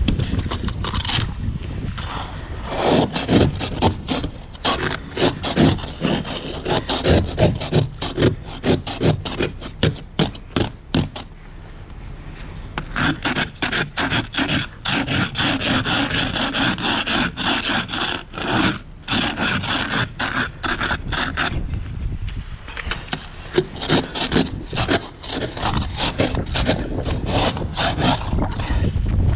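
An ice scraper scraping a glaze of freezing-rain ice off a car windshield in quick, repeated strokes, with a harsher, higher-pitched grating for several seconds in the middle. The ice is not frozen hard.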